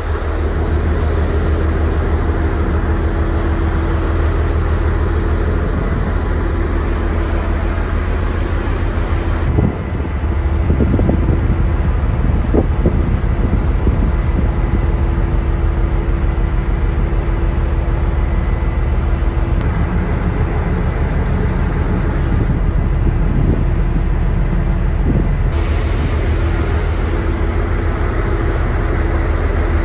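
Ferry under way: the ship's engines running with a steady low rumble and hum, mixed with the rush of the churning wake and wind on the microphone. The higher hiss drops away abruptly about ten seconds in and comes back near the end.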